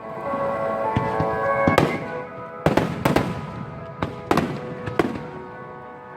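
Aerial fireworks shells bursting, about six sharp bangs roughly a second apart, over loud music played through loudspeakers.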